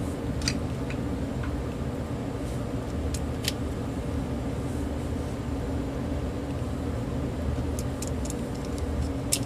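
Steady low hum with a few small, sharp clicks of plastic cordless-phone handset parts being handled as the keypad buttons are set back in place.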